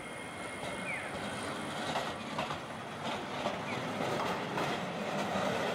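A Tosaden low-floor articulated tram rolls through a street intersection: steady running noise, several irregular clacks as its wheels pass over track joints and crossings, and a couple of brief faint wheel squeaks.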